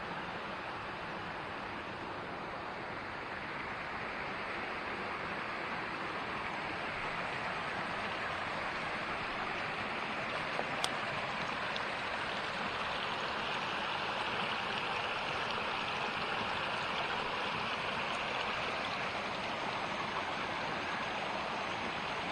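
Steady rush of creek water pouring over a small waterfall, with a single sharp click about halfway through.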